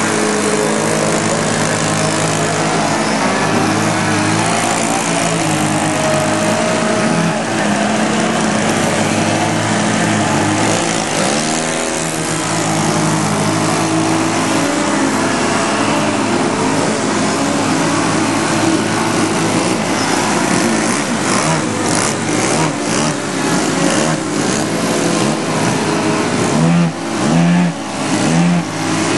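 Several radio-controlled aerobatic model airplane engines running at once, their pitches wavering up and down with throttle as the planes hover and manoeuvre. The sound turns choppier, with brief dips and surges, in the last several seconds.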